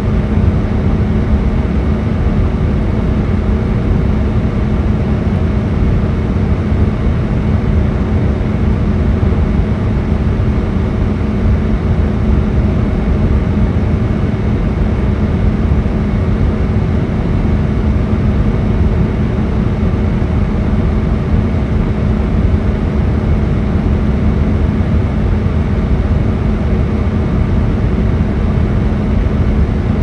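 Air vent blowing steadily: a constant rush of air with a low rumble and a faint steady hum running under it.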